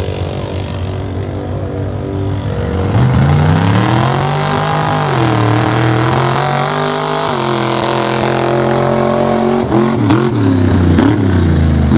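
Engine of a mud-racing vehicle running at a steady low speed, then revving up about three seconds in and held at high revs, with the pitch dipping around five seconds, dropping again about seven seconds in, and rising and falling quickly several times near the end.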